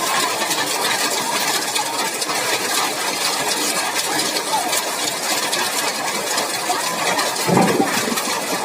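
Heavy hail falling, a dense, steady clatter of countless small hailstone impacts.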